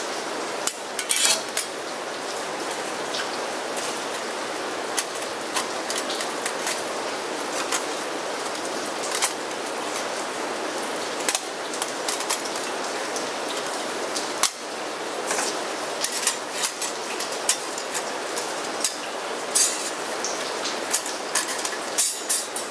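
Thin stainless-steel panels of a Onetigris Rocuboid folding camp stove clinking and clicking as they are handled and slotted together: many short, irregular metallic clicks. Steady rain hisses underneath.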